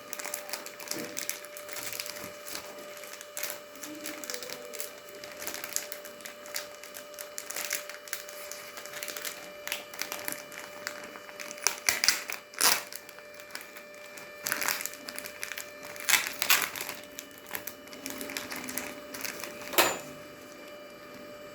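Irregular clicks, taps and rustles of a microwave's membrane keypad panel and its packaging being handled, with a few louder knocks about twelve, sixteen and twenty seconds in, over a faint steady hum.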